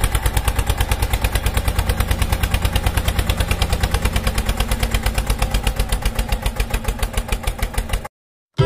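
Tractor engine running at a steady idle, an even rapid putt-putt of about ten beats a second. It starts and stops abruptly, cut in as a sound effect.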